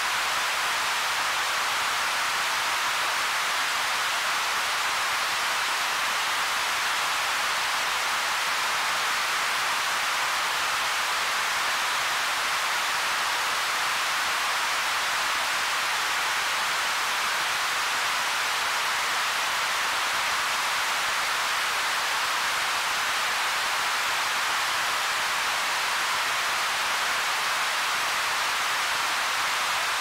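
Noise generator of a Roland SH-1000 vintage analog synthesizer putting out a steady, unchanging hiss. It is strongest in the upper-middle and treble and thin in the bass.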